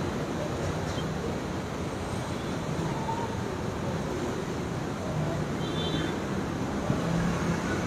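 A steady rushing noise, with faint voices murmuring in the second half.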